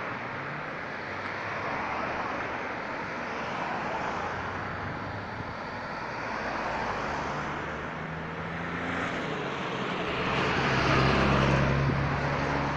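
Road traffic passing close by in a steady stream, the tyre and engine noise swelling and fading as each car goes past. In the second half a heavier engine's low hum builds and is loudest near the end as a minibus passes.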